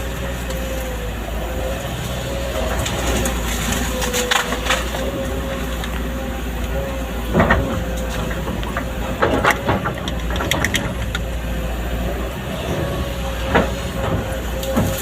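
Excavator engine running steadily with a constant whine, under a handful of sharp cracks and knocks, as of wood being broken, mostly in the middle.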